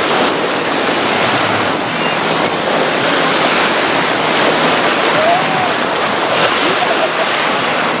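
Small waves washing in and out on a sandy shore: a steady, continuous rush of surf.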